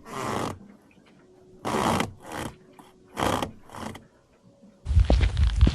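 Five short scraping noises with pauses between them, then about five seconds in a sudden switch to a louder, deeper sound with sharp clicks.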